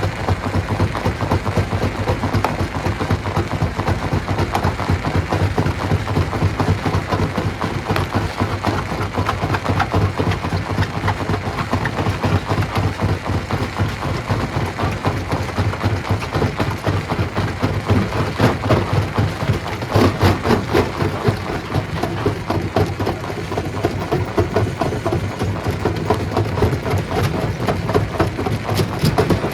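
Stone crusher machine running, a steady low drone under dense, irregular rattling and cracking of rock being crushed, heaviest about eighteen to twenty-one seconds in.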